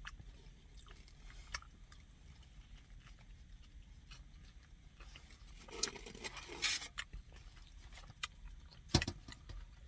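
Faint chewing and small clicks from someone eating an egg-and-avocado wrap, with a short louder patch of noise about six seconds in and a sharp click near the end.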